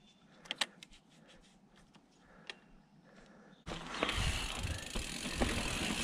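Mountain bike on a dirt forest trail: a few sharp clicks and ticks while rolling slowly, then, about two-thirds of the way in, a sudden jump to loud tyre, wind and rattling noise as the bike picks up speed downhill.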